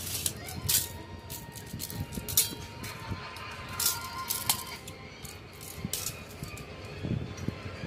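Steel tape measure being pulled out and laid along an exhaust muffler: a string of sharp clicks and rattles from the tape and handling.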